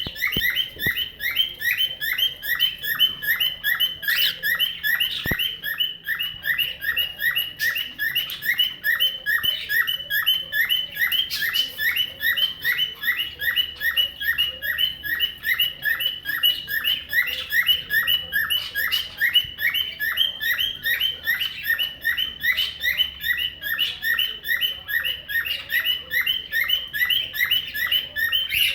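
Cockatiel imitating a car alarm: a rapid run of short, high whistled chirps repeated about four times a second, without a break.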